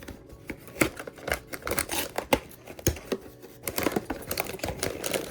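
Toy blind-box packaging being handled and opened: rustling and crinkling with many quick, irregular clicks and taps of cardboard and plastic.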